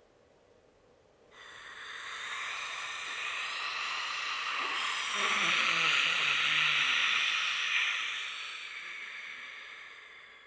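A long breathy hiss that starts suddenly about a second in, swells to a peak around six seconds with a low wavering voice sounding beneath it, then fades away near the end.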